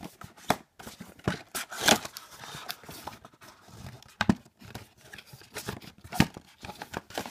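Cardboard gift packaging being handled and opened: rustling and tearing with irregular sharp taps and knocks, the loudest about two, four and six seconds in.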